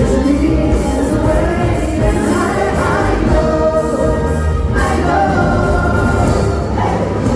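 Pop song performed live over a concert sound system: singing over a band with a heavy bass.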